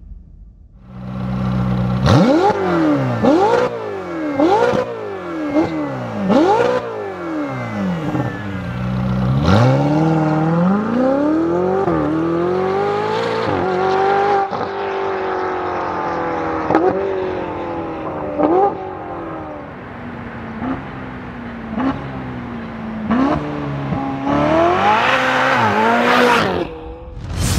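Ferrari 488 GTB's twin-turbo 3.9-litre V8 through an FI aftermarket exhaust: a steady idle, then five quick throttle blips about a second apart. It then runs hard, its pitch climbing and dropping several times, and passes loudly close by near the end.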